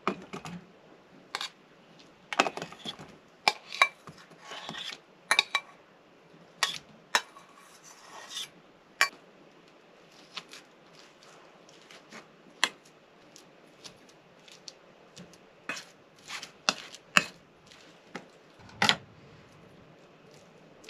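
Kitchen utensils and dishes being handled during cooking: irregular sharp clinks and knocks, some with a brief metallic ring.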